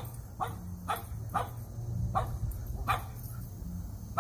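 Dogs barking repeatedly, a short bark about every half second at first, then more spaced out.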